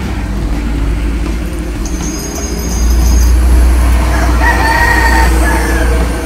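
A rooster crowing, one call about four and a half seconds in, over a loud steady low rumble.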